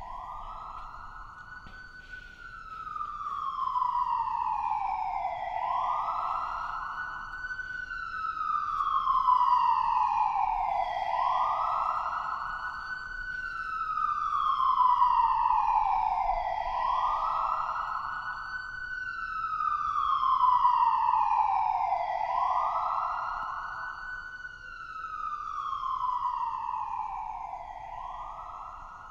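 Emergency-vehicle siren wailing. Each cycle rises quickly, then falls slowly over about five seconds, and the cycles repeat steadily, growing louder and softer as they go.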